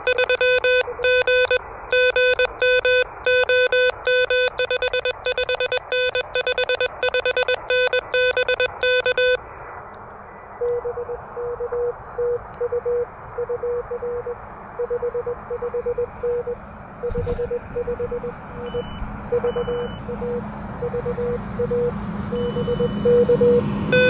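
Morse code from an Elecraft KH1 transceiver played through a small amplified speaker. For the first nine seconds or so the radio's own loud, buzzy sidetone keys out Morse with silent gaps as the operator sends. Then a fainter station answers in Morse at about the same pitch over steady band hiss.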